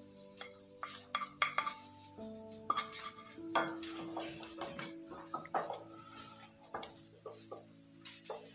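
Wooden spatula scraping and knocking against a small metal frying pan as an omelette is folded over, in scattered short scrapes and light knocks, with low sizzling of the egg over the gas flame.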